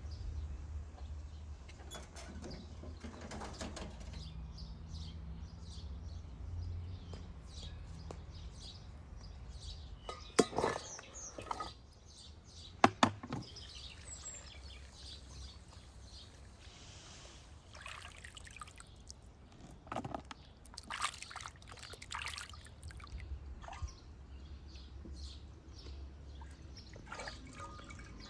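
Water sloshing and pouring in a basin as raw kidneys are washed by hand, with a few sharp knocks about ten and thirteen seconds in, and birds chirping.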